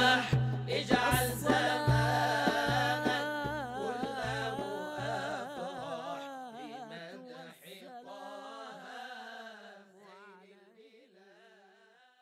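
Devotional nashid singing with a drum beat. The drum stops about halfway through while the sung line carries on and fades out to near silence at the end.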